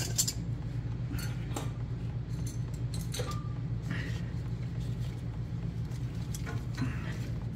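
Scattered metal clicks and clinks of channel-lock pliers being handled and fitted onto a seized transmission harness sleeve bolt, over a steady low hum.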